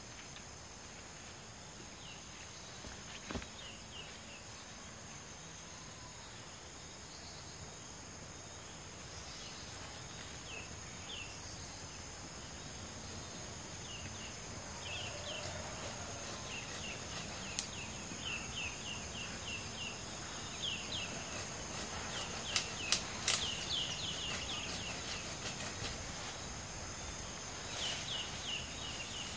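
Tropical forest ambience: a steady high insect drone, with repeated bursts of quick bird chirps. A few sharp snaps in the undergrowth stand out, one a few seconds in and a short cluster about three-quarters of the way through.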